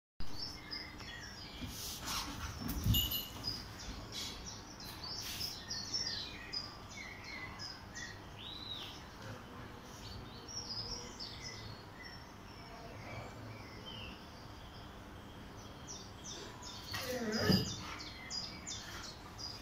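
Small birds chirping and tweeting in short scattered calls, the soundtrack of a wildlife video playing on a TV. There is a dull thump about three seconds in and a brief louder sound near the end.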